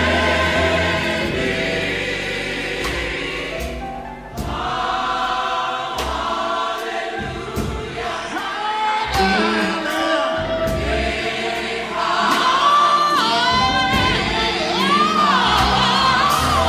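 Gospel choir singing with instrumental backing, a low bass line and a beat running under the voices. Near the end a single voice sings gliding runs over the choir.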